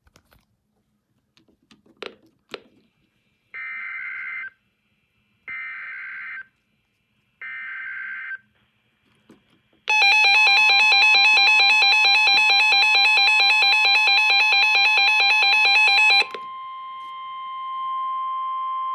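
NOAA Weather Radio alert coding: three one-second bursts of SAME digital header data, about a second apart. About ten seconds in, a loud pulsing alarm tone sounds for about six seconds over the steady 1050 Hz warning alarm tone. The steady tone carries on more quietly until near the end.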